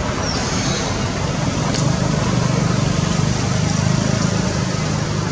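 Steady rumble of a motor vehicle's engine running, with a few faint high chirps.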